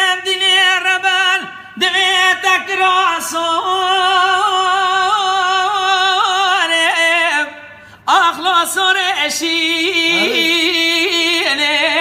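A solo voice singing a slow, ornamented melody in long held phrases with vibrato, pausing briefly about eight seconds in.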